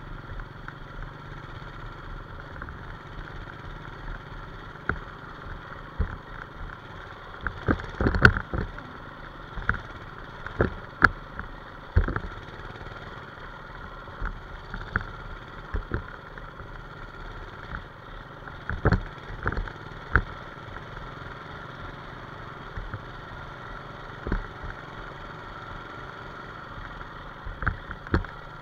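1990s Manco Streaker minibike's small engine running at a steady pace on a rough dirt road. Sharp knocks and rattles from the bumps come on top, loudest about eight and eleven seconds in and again around nineteen seconds.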